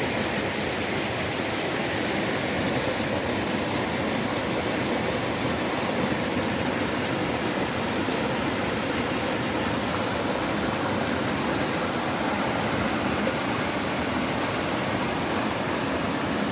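Steady rush of falling water from a waterfall or fast stream, an even roar with no change in level.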